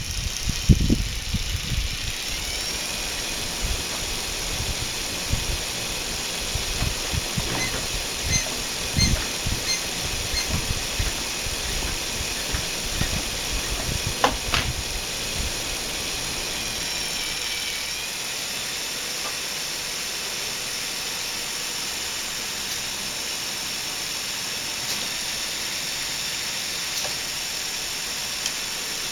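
Lego Technic pneumatic engine running on compressed air and spinning its propeller. A steady air hiss carries a whine that rises in pitch about two seconds in, with light plastic rattling and knocks through the first half. It settles to a steadier hiss after about eighteen seconds.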